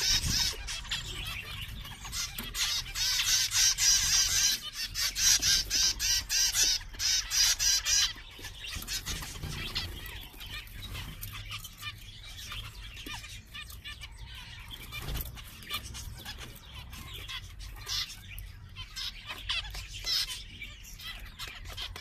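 A flock of zebra finches calling together, a dense, rapid chatter of short nasal beeps and song, busiest for the first eight seconds or so and thinner after that.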